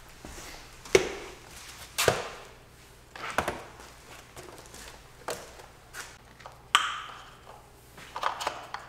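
Scattered sharp clicks and knocks, about seven over several seconds, as hands handle and fit parts in a car's engine bay.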